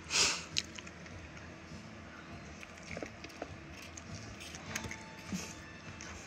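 A person eating: a short, sharp noisy sound just after the start, then quieter chewing with faint small clicks.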